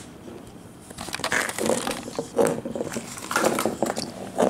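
A cat chewing at a compressed catnip ball: irregular crunching that starts about a second in.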